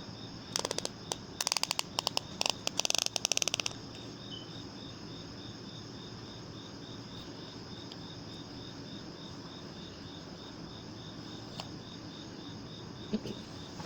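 Ratchet belt buckle clicking in a quick run of clicks for about three seconds as the belt strap is slid through its ratchet catch. Crickets chirp steadily in the background throughout.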